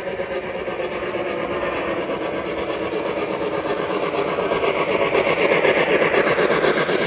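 Lionel O-gauge PRR USRA 2-8-8-2 model steam locomotive and its freight cars rolling past on three-rail track: a steady mechanical running sound with a fast clatter of wheels on rail. It grows louder as the train comes by and is loudest toward the end.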